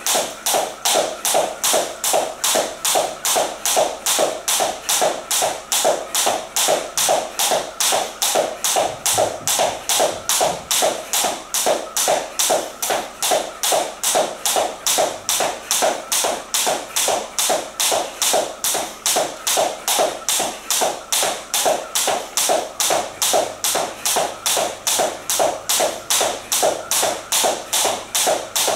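Skipping rope slapping a wooden floor and trainers landing with each jump, a steady rhythm of sharp taps a little over two a second.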